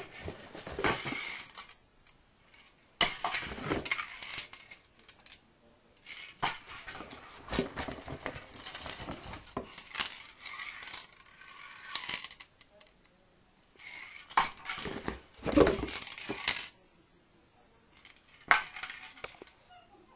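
Metal spray paint cans clinking and knocking against each other as they are handled and moved around, in several separate bursts with short pauses between.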